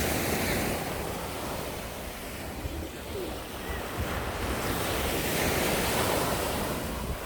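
Sea waves breaking and washing up the beach in two swells, one near the start and a stronger one past the middle, with wind buffeting the microphone.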